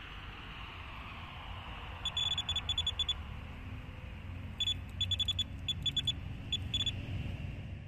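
Electronic bite alarm on a pike rod beeping in quick runs of high beeps, one about two seconds in and a longer stuttering one from about four and a half seconds to seven, over steady background hiss. The alarm is signalling line being pulled out as a pike takes the deadbait.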